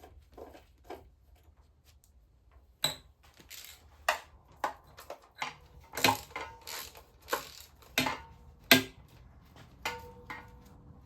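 Steel engine bolts and washers clinking and clattering as they are handled and set down, in a string of separate knocks, one part ringing briefly near the end.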